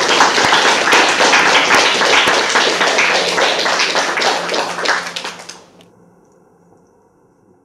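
Audience applauding, a dense patter of many hands clapping that fades away about five and a half seconds in.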